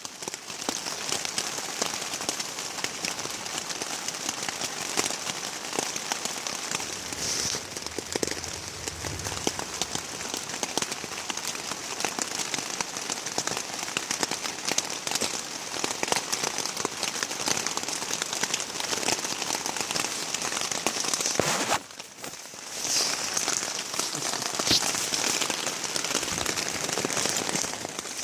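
Steady rain falling, a dense patter of many small drops striking a surface. It briefly drops away a little over 20 seconds in.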